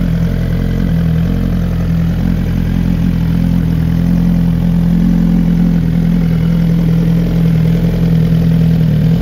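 Suzuki GSX-R1000R's inline-four engine idling steadily, with no revving.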